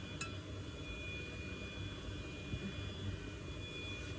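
Steady low background rumble with a faint high whine, and a small click about a quarter second in.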